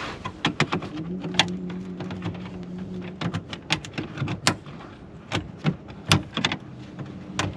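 Sharp, irregular clicks and snaps of plastic push-rivets being pried out of a truck's cowl shroud. A low steady hum runs from about one second in to about three seconds in.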